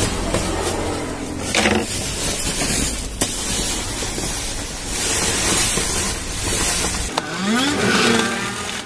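Woven sugar sack and large plastic bag rustling and crinkling as the sack is cut open and handled, with a few sharp clicks. A low rumble runs underneath and stops about seven seconds in.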